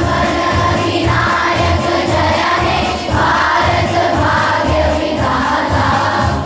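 A group of children singing the national anthem together in chorus, with musical accompaniment.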